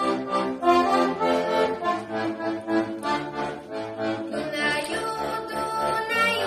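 Solo accordion playing a Slovak folk tune.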